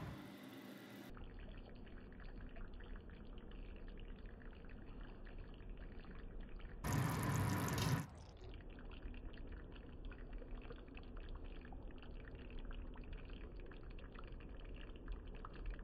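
Chicken curry simmering in a pan, the thick gravy softly bubbling and popping. About seven seconds in, a louder rush of noise lasts about a second.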